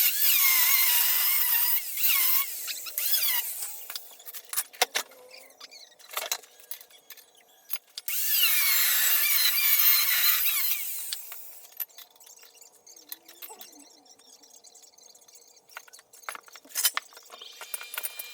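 A power tool run in two long bursts, each with a high whine that wavers and falls, with short clattering knocks between and after.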